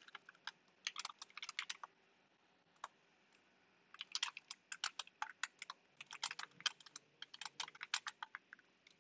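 Typing on a computer keyboard: quick runs of keystrokes, with a pause of about two seconds broken by a single keystroke, then steady typing again through the second half.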